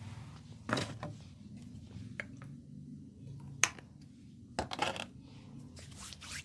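Hands working an oiled head in a head massage: scattered short rubs and pats with several sharp clicks at irregular intervals, the loudest click a little past halfway.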